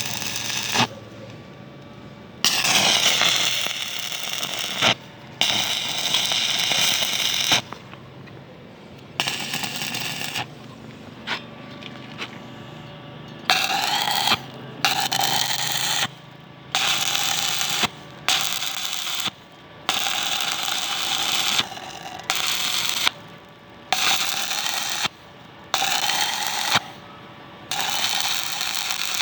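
Electric arc welding on a steel fence, crackling and hissing in a long run of short welds, each one to two seconds, that start and stop abruptly.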